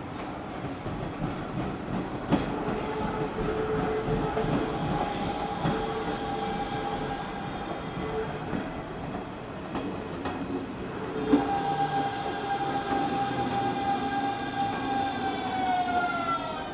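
Hanshin 5500 series electric train running on the rails, a steady rumble broken by sharp clacks over the rail joints. About two-thirds of the way in, a motor whine of several stacked tones comes up and then falls in pitch over the last few seconds.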